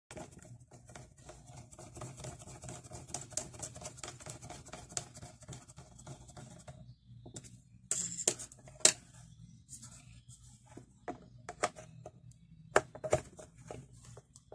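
Hands handling a handheld terminal's plastic housing on a tabletop: close rustling, scraping and light clicking for about the first seven seconds, then several separate sharp plastic clicks and taps as the case is closed up and turned over. A faint low hum runs underneath.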